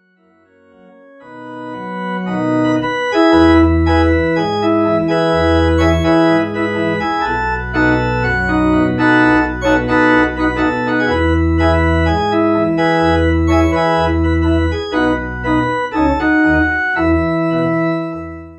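Pipe organ playing slow, sustained chords over changing low pedal notes. It fades in over the first few seconds and fades out at the end.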